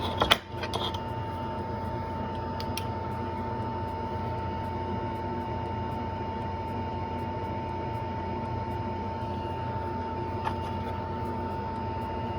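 Steady whirring hum of a small electric fan or blower with a constant high whine, plus a few light clicks about a second in.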